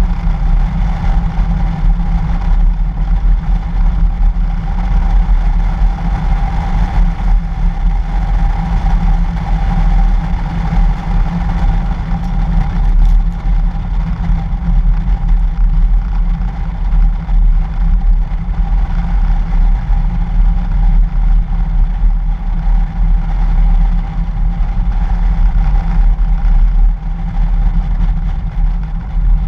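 2013 Toyota FJ Cruiser driving on a snow-covered road, heard from a camera mounted on the outside of its body: a steady low rumble of engine and tyres with a constant mid-pitched hum over it.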